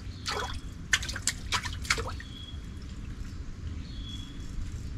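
Water dripping into water: a quick run of drops in the first two seconds, then quieter, over a steady low rumble. A short high chirp sounds twice in the second half.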